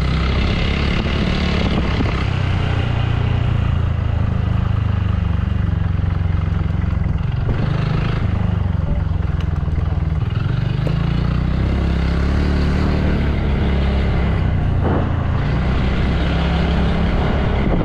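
Engine of a small motor vehicle running steadily under way, its pitch rising and falling a little with speed, over continuous road and wind noise.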